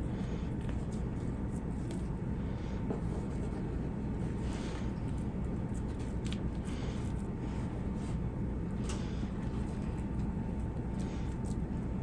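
Soft, scattered rustling and pressing of hands rolling a jam-filled biscuit dough log on a floured board, over a steady low background hum with a faint thin tone.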